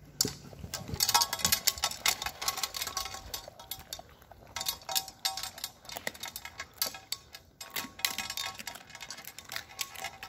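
Cane Corso puppies eating together from a metal pot: a dense, irregular clatter and clicking of muzzles, teeth and tongues against the metal and the food.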